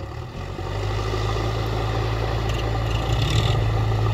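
Diesel engines of a JCB 3DX backhoe loader and a John Deere 5042D tractor running together in a steady low drone, rising about half a second in and then holding level.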